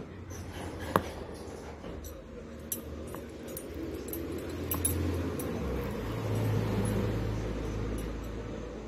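A neoprene girth strap and its metal ring being handled, giving a few sharp clicks, the loudest about a second in, over a steady low hum.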